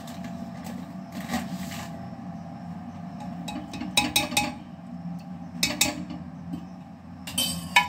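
A metal spoon stirring and clinking against a cooking pot of dal, with a few sharp clinks about four seconds in, again near six seconds, and a quick run of them near the end, over a steady low hum.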